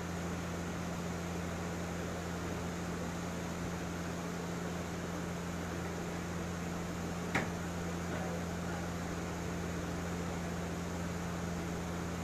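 A steady low mechanical hum with hiss, and a single sharp click about seven seconds in.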